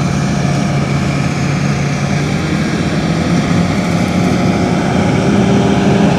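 A heavy engine running steadily with a constant drone.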